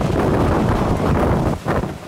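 Jet blast from a Boeing 737-800 at takeoff power buffeting the microphone: loud, gusting wind noise that briefly eases twice near the end.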